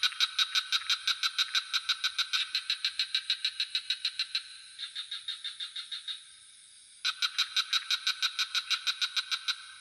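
Frogs calling in rapid pulsed trills, about seven pulses a second, in bouts lasting a few seconds. A softer, higher trill comes about five seconds in, then a short pause, then the loud trilling resumes. A steady high insect drone runs underneath.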